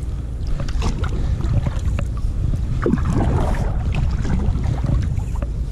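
Wind buffeting the microphone on a kayak on open water, a steady low rumble, with scattered small clicks and knocks on top.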